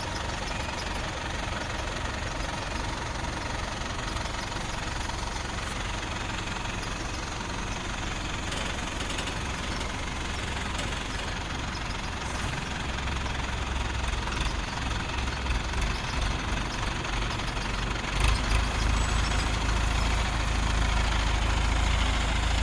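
Heavy vehicle's engine running steadily at low speed as it creeps forward, its low rumble growing louder over the last several seconds.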